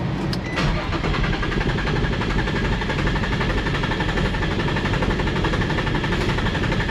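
Infiniti G35's starter motor cranking the engine steadily for several seconds, beginning about half a second in, with a thin whine over a fast, even churn, and the engine not catching. The engine cranks but won't start because the immobilizer is in lock mode (code P1610) without its key fob.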